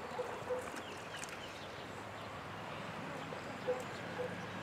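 Steady rush of flowing creek water, with a few light knocks and several short faint chirps over it.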